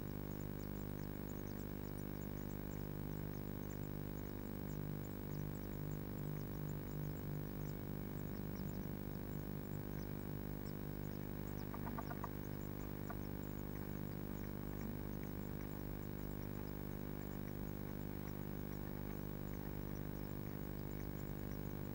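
Steady electrical mains hum from the nest box camera's audio. Faint, short high-pitched ticks are scattered through it, with a brief scratchy rustle about twelve seconds in.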